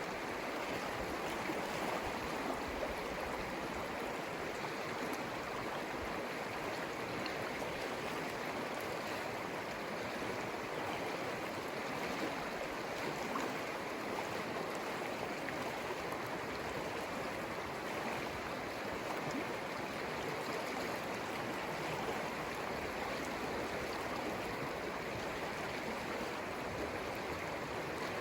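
The Conejos River flowing: a steady, even rush of running water.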